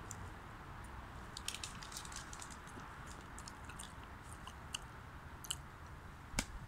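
Faint wet clicks and smacks of a man's mouth working, chewing and smacking his lips as the ghost pepper burns, over a steady faint hiss, with one sharper click near the end.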